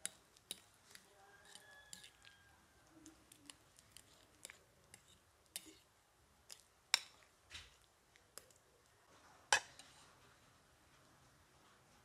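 Metal fork clinking and scraping against a ceramic bowl while mashing ripe bananas: a string of light, irregular clicks, with two sharper clacks about seven and nine and a half seconds in.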